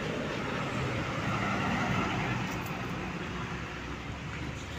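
Heavy tanker truck driving past, its diesel engine and tyres on the road growing louder about two seconds in and then fading as it pulls away.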